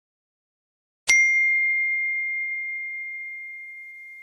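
iPhone notification sound: a single bell-like ding, struck sharply about a second in, then ringing on one clear tone that slowly fades away.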